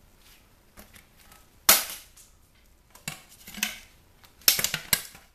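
Sharp clicks and knocks of hard plastic and steel parts from a dismantled CD changer being handled, a few separate snaps with the loudest about two seconds in and a quick run of them near the end.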